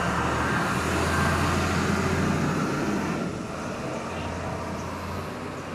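Garbage compactor truck's diesel engine running as the truck moves along the street, a steady low drone that eases off a little after about three seconds.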